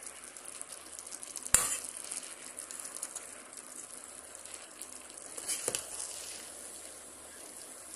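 Chicken biryani in an aluminium pot sizzling on the stove while a perforated metal ladle stirs through the rice. There is a sharp knock about a second and a half in and a softer one near six seconds.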